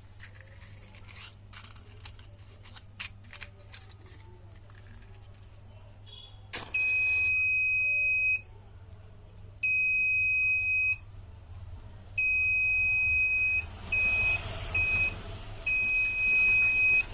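Buzzer of a homemade fire alarm circuit sounding a single high, steady tone in loud on-off bursts of one to two seconds, with the last few bursts shorter and choppier. The bursts start after a sharp click about six seconds in; before that there are only faint clicks and a low hum.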